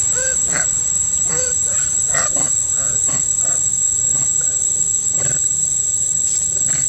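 Monkeys calling: short squeaks that rise and fall in pitch, repeated many times and growing sparser near the end, over a steady high-pitched whine.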